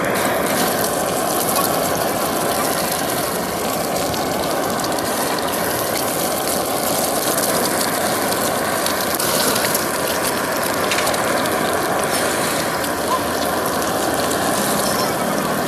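Steady, dense crackling sizzle of eggs frying in hot oil on a griddle.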